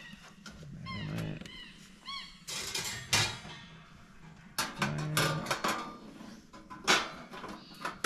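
Metal clatter of wire grill racks and a tin drip tray being handled in a galvanised steel smoker box, loudest about three, five and seven seconds in. An animal gives two short high calls in the first couple of seconds.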